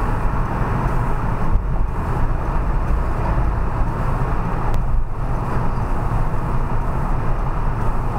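Steady road and engine noise of a car driving at speed, heard from inside the cabin through the dashcam's microphone.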